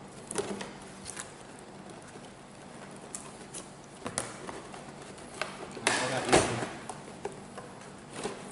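A white cardboard box being cut open with a utility knife and handled: scattered clicks, taps and scrapes of knife and cardboard, with a longer, louder scraping rustle about six seconds in as the lid is pulled open.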